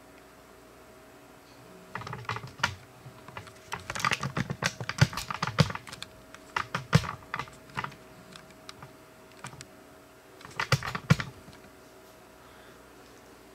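Hands handling a new transceiver and its packing: irregular bursts of light clicks and taps, with a long run in the first half and a shorter burst near the end.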